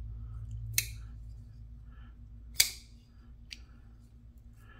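TwoSun TS196 Sabertooth folding knife worked open and shut, giving three sharp metal clicks of the blade snapping into place; the middle click is the loudest and the last is faint. The pivot action is being tested after reassembly and retightening.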